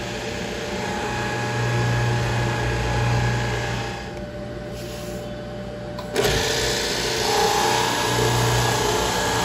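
Unique Machine & Tool Co. multi-spindle line boring machine running with a steady motor hum while it bores rows of shelf-pin holes in a plywood cabinet side. Its level swells and eases, and the sound jumps suddenly about six seconds in.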